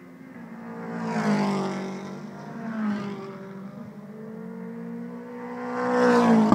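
British Touring Car Championship race cars running at high revs as they pass one after another. Their engine pitch drops as each goes by, and the loudest pass comes near the end.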